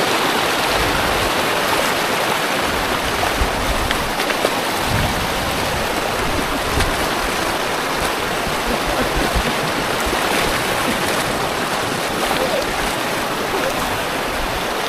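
Shallow rocky stream running over stones: a steady rush of flowing water, with occasional low bumps in the first few seconds.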